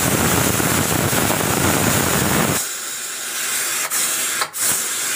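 Pressure cooker whistling: steam blowing out loudly past the whistle weight as the cooker reaches pressure. The blast is fullest for the first two and a half seconds or so, then eases to a lighter steady hiss, broken by two short dips near the end.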